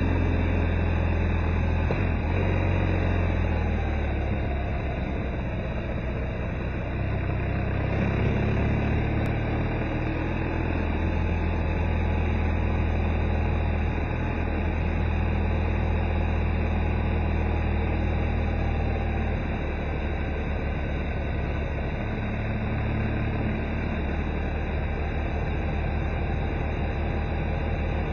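Car driving along a winding road, heard from inside the cabin: a steady low engine drone mixed with tyre and road noise, the engine pitch sliding down and back up a few seconds in.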